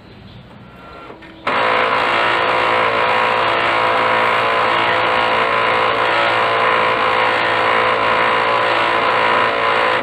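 Brother DCP-L2540DW laser printer running with a loud, steady grinding noise that starts suddenly about a second and a half in. This is the sign of a fault in the fuser assembly and its drive gear.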